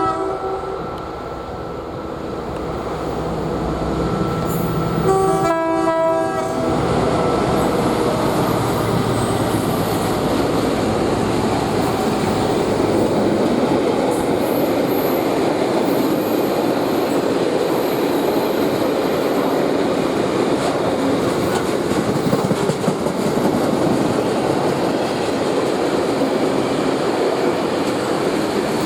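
British Rail Class 60 diesel locomotive sounding its horn: a blast ending just at the start, and a second blast of about a second and a half about five seconds in. Then the locomotive and its loaded oil tank wagons roll past in a steady, even rumble and rattle of wheels for the rest.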